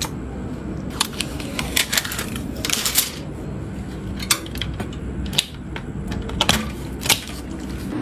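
Irregular sharp clicks and taps of computer parts being handled and fitted during a PC build, over a steady low hum.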